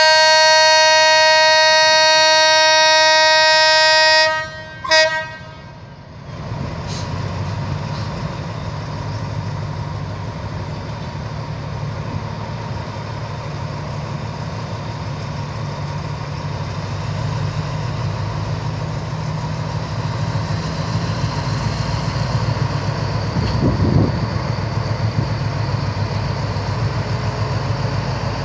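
Diesel locomotive D.4303 sounds its horn in one long blast of about four seconds, then a short toot. Its diesel engine then rumbles and slowly grows louder as it starts pulling the train out, with a single knock near the end.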